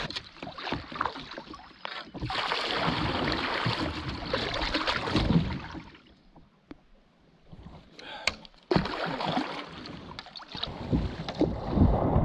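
Double-bladed kayak paddle strokes splashing and churning choppy, fast-flowing river water, with a brief lull about halfway through.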